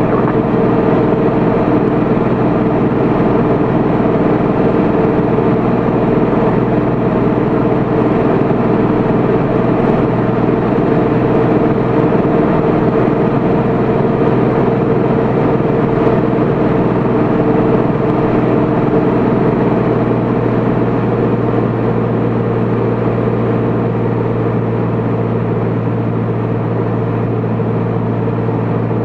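Steady in-cabin drone of a Cessna Corvalis 400's turbocharged six-cylinder engine and propeller in cruise flight. A low hum grows stronger about two-thirds of the way through.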